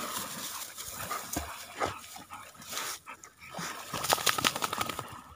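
Dog whimpering, with crackling rustle of dry grass and reeds that is loudest about four seconds in.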